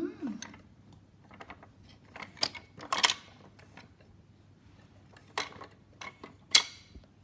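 A series of sharp clicks and knocks from wooden and plastic toy train pieces being handled. The knocks come in two clusters, and the loudest is near the end.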